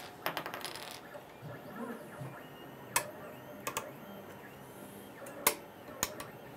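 Metal arms of a Deltaprintr Go delta 3D printer being fitted onto their magnetic ball joints. A light metallic rattle comes first, then several sharp clicks as the magnetic ends snap into place.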